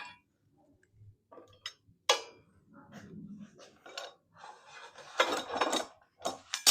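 Metal parts and tools being handled: irregular clinks and knocks with some scraping, the busiest clatter about five to six seconds in and a sharp knock near the end.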